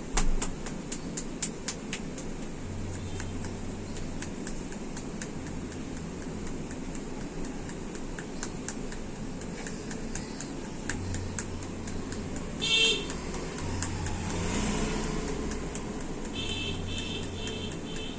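Barber's open-palm slaps and pats on a customer's head during a massage: irregular sharp pats, a few a second, over steady street traffic noise. A vehicle horn toots once about 13 s in, and a run of short beeps sounds near the end.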